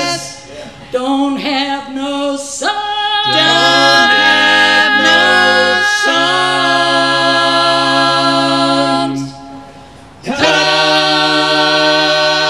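Several voices singing in close harmony with little accompaniment, holding long drawn-out chords; a short break comes about ten seconds in before a final held chord.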